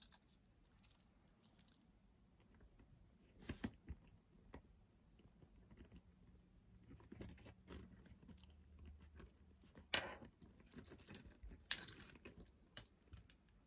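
Faint, scattered clicks and rustles of keychains being handled and clipped onto a backpack. The sharpest clicks come about three and a half seconds in and again around ten to twelve seconds in.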